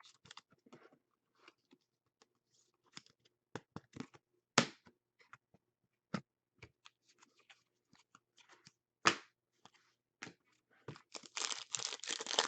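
Faint handling of trading cards and packs: scattered light clicks and taps with a few sharper ones. From about eleven seconds in comes a dense, continuous crinkling and tearing, like a pack wrapper being torn open.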